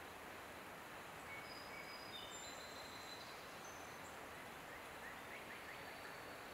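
Steady outdoor background hiss with faint, short, high whistled bird notes at several pitches, scattered between about one and five seconds in, then a few quick small chirps.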